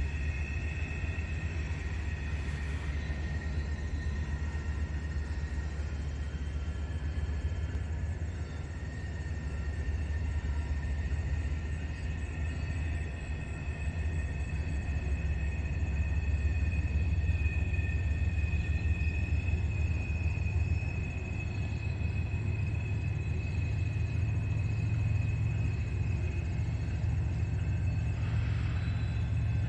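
Freight train's wheels screeching as it goes around a curve: a high, sustained squeal that wavers slightly in pitch and swells in the middle, over a steady low rumble.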